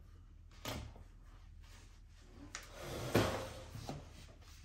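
A few light knocks and clicks from handling a syringe and vaccine vial, the loudest about three seconds in.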